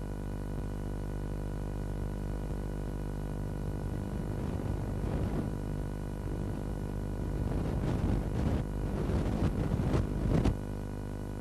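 Steady synthesizer drone of background music. About four seconds in, a rough rumbling noise joins it, grows louder and stops suddenly near the end.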